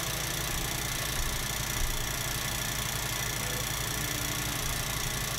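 Old film projector running, its motor and film transport making a steady whirring clatter.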